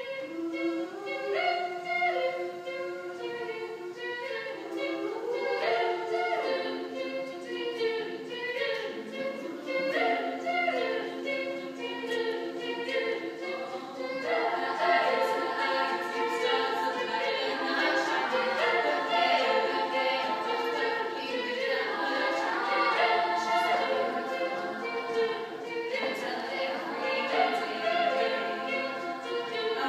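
Female show choir singing a cappella in close harmony, holding sustained chords. About halfway through, the singing grows fuller and louder.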